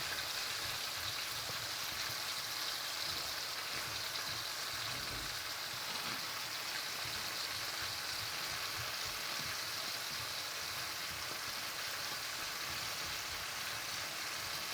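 Food sizzling steadily in a hot frying pan: an even, unbroken hiss.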